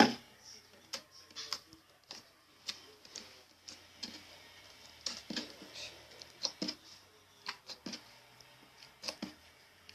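Handful of soft slime being squeezed and stretched by hand, giving irregular sticky clicks and crackles, with one sharp, louder knock right at the start.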